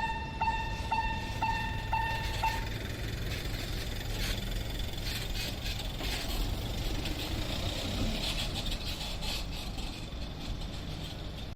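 Japanese railway level-crossing alarm dinging about twice a second, stopping about two and a half seconds in. A steady low mechanical rumble with scattered clatter runs underneath and goes on after the bell stops.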